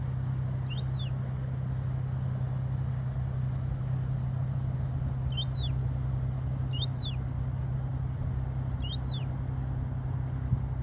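Four short, high-pitched bird chirps, each rising and falling, spread over a steady low hum.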